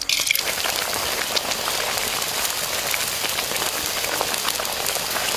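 Steady, dense crackling hiss of many fine pops, like rain or hot oil sizzling, starting suddenly and stopping near the end.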